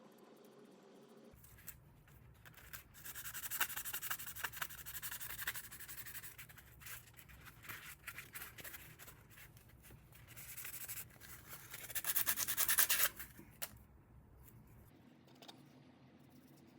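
Scratchy hand rubbing against a small plastic toy in uneven strokes for about ten seconds, loudest near the end, as it is worked on for refinishing.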